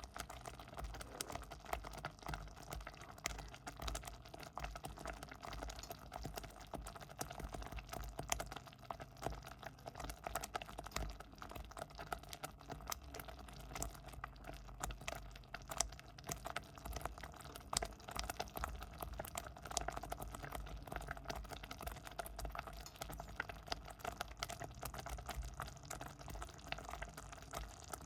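Thick porridge boiling in a pot, a continuous dense stream of small irregular bubbling pops and plops.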